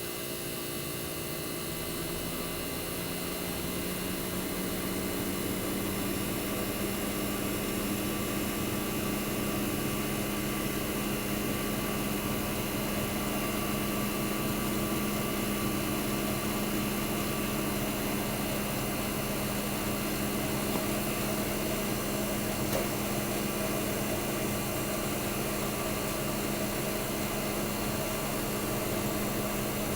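1965 Fedders Weather Wheel air conditioner running: a steady compressor hum with an even rush of fan air that builds over the first few seconds and then holds. Its fans are the blower fans only, because the condenser fan motor awaits repair.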